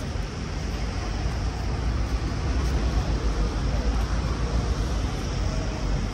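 City street ambience: a steady wash of road traffic with a heavy low rumble.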